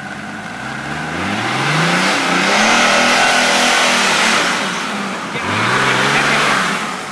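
Off-road 4x4's engine revving hard under load as it climbs a steep grassy bank: the pitch rises, holds high, drops about five seconds in, then rises again before easing off near the end.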